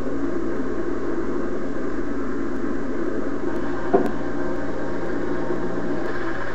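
Minibus running along the road, heard from inside the cabin as steady engine and road noise, with one sharp knock about four seconds in. It plays through a television's speaker.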